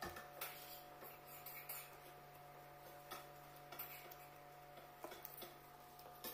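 Faint, scattered clicks and taps of someone eating by hand, tearing puri and touching a steel plate, about once a second, over a steady low hum.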